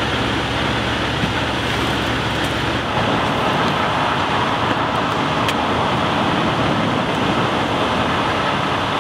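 Fire engine running steadily, with a low rumble for the first few seconds; about three seconds in the sound turns to a brighter, even engine noise with less low end.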